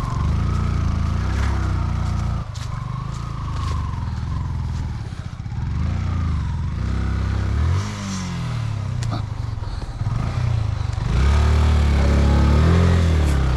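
Motorcycle engine running under load, its pitch rising and falling again and again as the throttle is worked. It grows louder in the last couple of seconds, and there are a few sharp knocks around the middle.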